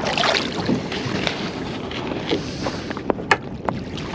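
Water sloshing and splashing around a small jewfish (mulloway) being held in the river, with wind on the microphone. A few sharp clicks come about three seconds in.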